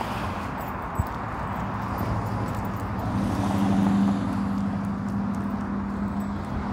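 Street traffic: a passing vehicle's engine hum swells to a peak about four seconds in and then eases off, over the steady tap of footsteps on a concrete sidewalk. One sharp click about a second in.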